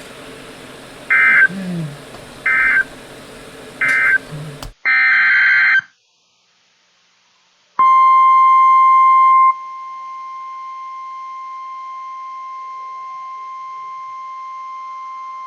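Emergency Alert System data tones on a weather radio. Three short warbling data bursts over radio static close one alert, and a longer burst about five seconds in opens the next. After a brief silence comes the steady single-pitch NOAA Weather Radio warning alarm tone at 1050 Hz, which holds for about nine seconds.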